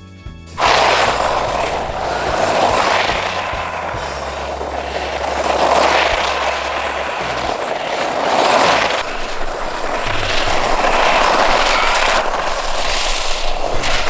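Small electric four-wheel-drive RC monster truck (GP Toys Venom Hunter S921) running across snow, its motors and tyres making a loud rushing noise. The noise starts suddenly about half a second in and swells and eases every two to three seconds as the throttle is worked.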